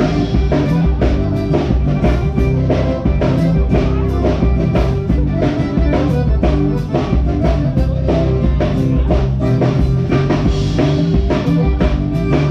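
Live band playing: acoustic guitar over a drum kit keeping a steady beat.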